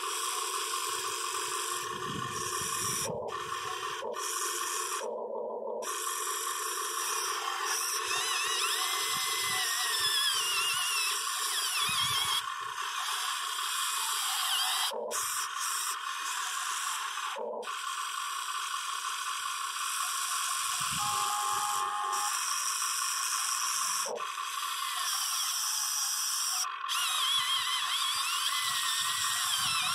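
Whine of the small electric motors and gearboxes of a Huina 580 RC excavator, running in steady spells that stop short now and then. Scattered low scraping rumbles come through as it works.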